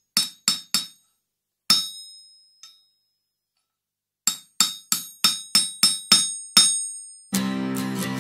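A blacksmith's hammer ringing on an anvil, used as the song's intro. Three quick strikes come first, then one that rings on, a faint tap, a pause, and a run of eight strikes at about three a second. A full band comes in with held chords about seven seconds in.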